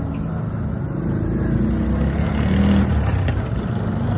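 Small engine of a tuk-tuk (auto-rickshaw) running as it drives along the street, growing louder to a peak about two and a half seconds in, then easing off.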